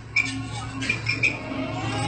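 Background guitar music over a low steady hum, with a few short sharp plucked or clicking notes.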